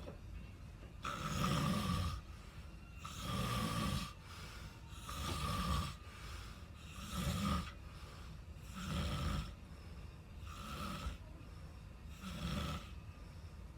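A person snoring in sleep, seven rhythmic snoring breaths about two seconds apart, each lasting about a second.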